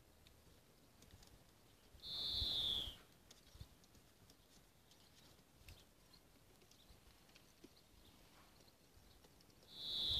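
High, thin animal call, heard twice about eight seconds apart, each under a second long and sliding down in pitch at the end.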